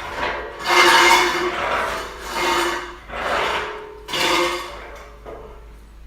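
Four scraping, rubbing strokes about a second apart, some with a faint ringing tone, as steel motorcycle-dolly parts are slid or shifted during assembly.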